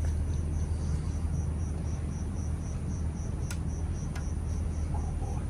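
A cricket chirping steadily at night, about three high chirps a second, over a steady low rumble. A single sharp click about three and a half seconds in.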